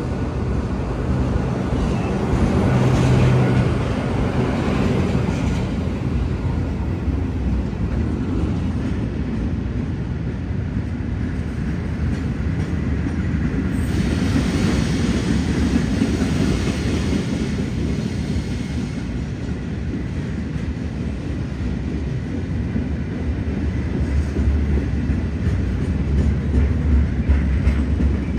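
Electric locomotive 8649 and its train of wagons rolling past at low speed, a steady rumble of wheels on rail. The low rumble grows heavier near the end as the wagons pass close by.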